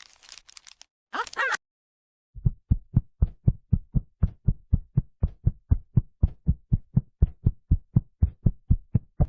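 Heartbeat sound effect pounding very fast, with about four to five low thumps a second from a couple of seconds in. It stands for the dog's racing heart after eating chocolate.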